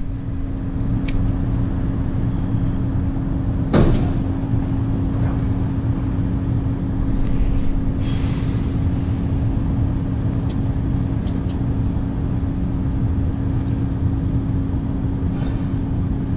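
Steady low rumble with a constant hum, and a single sharp click a few seconds in.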